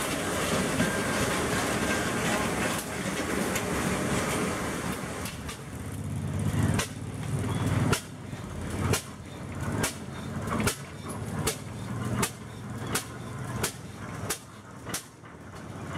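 A small-gauge passenger train rolling past as a steady rumble. Then, about six seconds in, a big antique steel-wheeled tractor's engine fires in slow, even exhaust beats, a little more than one a second.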